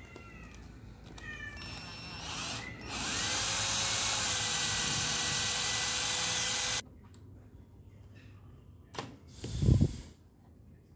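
Turtle cordless drill boring a hole through the plastic cap of an eyedropper bottle. It gives a few short trigger bursts with a rising motor whine, then runs steadily for about four seconds and stops suddenly. A couple of knocks follow near the end.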